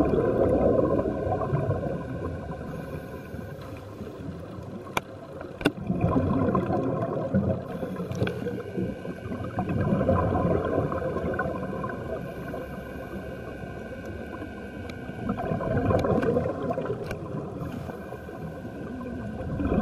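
Underwater sound of scuba breathing: bubbles gurgling from a diver's regulator in swells every few seconds, with a couple of sharp clicks about five seconds in.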